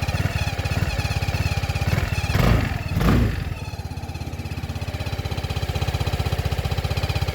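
Vespa GTS 300 HPE scooter's single-cylinder engine running with a fast, even pulse and a thin, wavering high squeak over it. Two brief louder surges come about two and a half and three seconds in.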